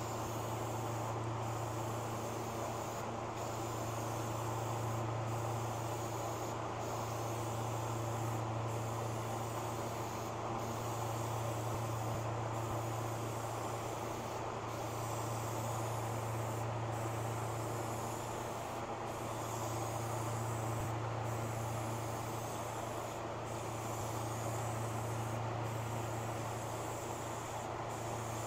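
Aerosol spray-paint can hissing as white paint is sprayed onto a metal tractor hood in repeated passes, with brief breaks about every two seconds. A steady low hum runs underneath.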